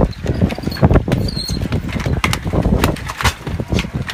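Racing bicycles clicking and clattering close by as riders squeeze past fallen bikes and remount after a crash: many sharp, irregular clicks and knocks over a rushing noise.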